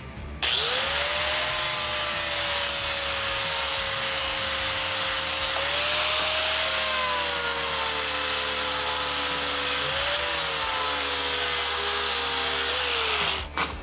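Electric angle grinder running up to speed and grinding a weld bevel into the edge of a steel C-channel: a steady high whine over a hiss of grinding, its pitch wavering a little twice. Near the end it is switched off and the whine falls away as it winds down.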